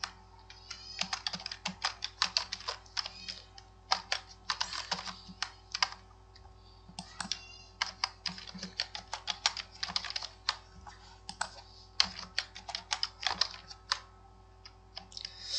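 Computer keyboard typing: quick runs of keystrokes separated by short pauses.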